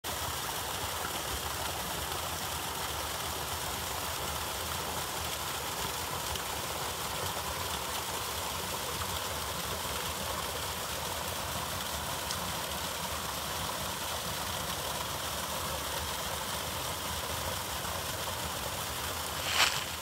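Small waterfall spilling over a rock ledge into a pool, a steady rushing splash. Just before the end, footsteps begin crunching through dry fallen leaves.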